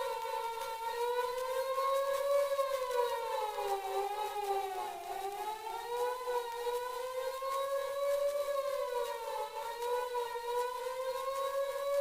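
Mechanical fire engine siren wailing, its pitch slowly sagging to a low point about halfway through and winding back up, played from an old 78 rpm sound-effects record with echo added.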